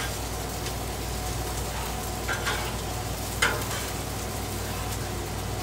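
Burgers and onions sizzling steadily on a Blackstone flat-top griddle, with a few short scrapes of a metal spatula on the griddle top between about two and three and a half seconds in.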